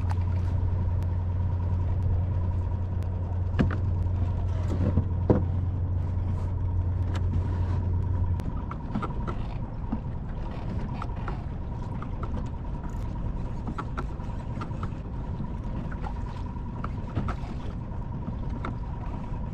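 Small 2.5 hp outboard motor on a kayak running with a steady low hum, then cutting out about eight seconds in. Water and wind noise follow, with a few light clicks.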